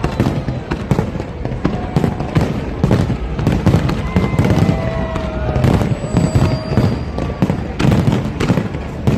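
Fireworks display: a dense, continuous run of bangs and crackles, one after another over a low rumble.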